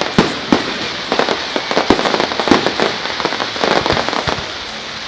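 Fireworks salute bursting overhead: a dense run of sharp crackling pops that thins out about four seconds in, leaving a steady hiss.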